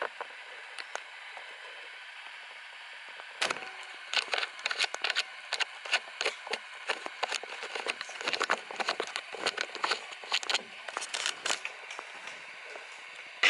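Rustling close to the microphone: after a few seconds of steady hiss, a long run of irregular sharp crackles and clicks that dies down near the end.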